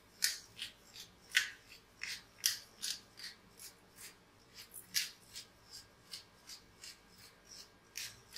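Pepper grinder being twisted by hand, giving a run of short, faint crunching grinds about two or three a second as peppercorns are cracked.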